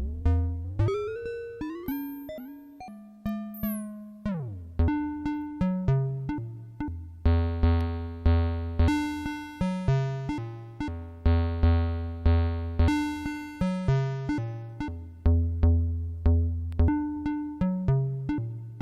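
A clone of the Mutable Instruments Elements modal-synthesis module plays a pattern of struck, ringing notes that each decay. Early on the pitch glides up and then sweeps down. After that a repeating pattern of about two notes a second settles in over a low bass note.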